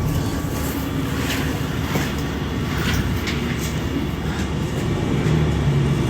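City bus running, heard from inside the cabin: a steady low engine and road rumble with a few faint rattles.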